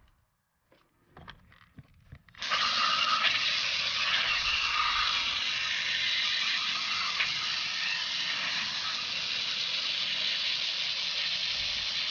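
Water spraying steadily to rinse a dirty pond air stone clean; it starts suddenly a couple of seconds in, after a few faint clicks and knocks.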